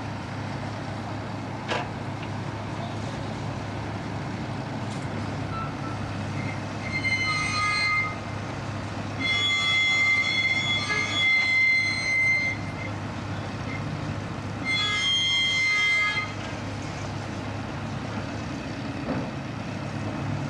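A heavy machine's engine idles steadily while a high-pitched horn sounds three times: about a second, then a longer three-second blast, then a second and a half.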